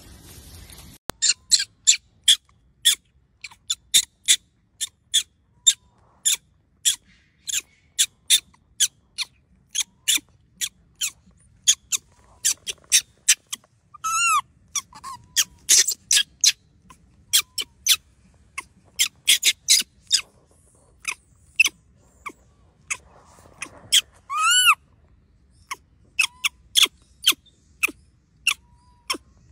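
Macaque monkey giving a long run of short, high-pitched squeaky calls, about two a second, starting about a second in. Two longer drawn-out cries stand out, one about halfway through and one near the end.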